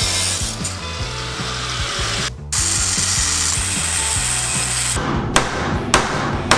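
A power tool grinding on a steel fuel tank's welded-shut filler cap, stopping briefly about two and a half seconds in and then starting again. After about five seconds come a few sharp knocks. Background music with a bass line plays underneath.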